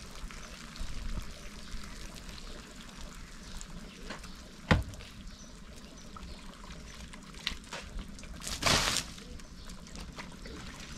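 Metal ladle scooping and pouring water in a plastic basin, with splashing and trickling. There is a sharp knock a little under halfway and a short burst of splashing near the end.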